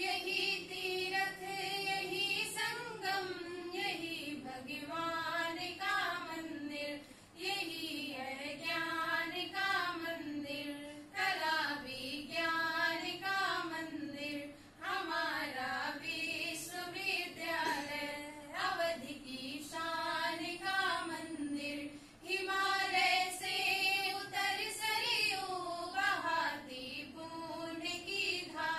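A small group of girls singing a devotional song together, in long melodic phrases.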